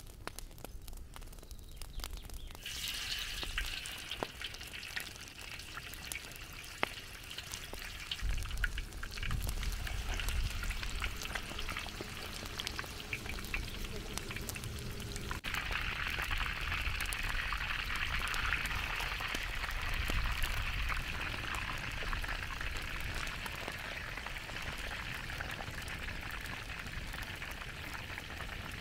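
Chicken pieces frying in hot oil in a wide steel pan: a steady sizzle with many small crackles and pops, starting suddenly about two and a half seconds in.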